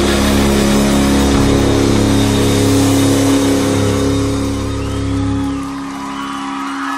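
Rock song ending on a long held chord of steady, sustained notes; the low bass drops away about five and a half seconds in, and a few short sliding notes come in near the end.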